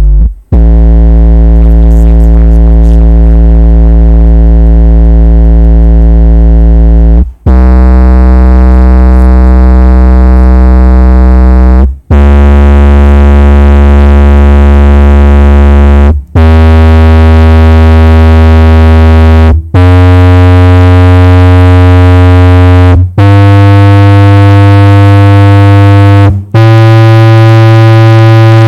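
Sony MHC-EC99i stereo and subwoofer playing loud low-frequency test tones: a buzzy, steady hum that steps up in pitch with a short break between each tone, seven steps in all.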